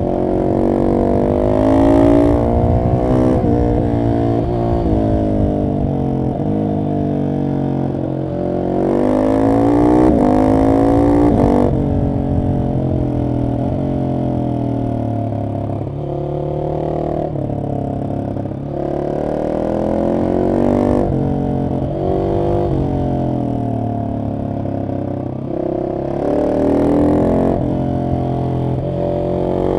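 Husqvarna 701 SM's single-cylinder engine through an Arrow exhaust with the catalytic converter removed, pulling hard with its pitch rising and then dropping back over and over as the rider accelerates, shifts and rolls off.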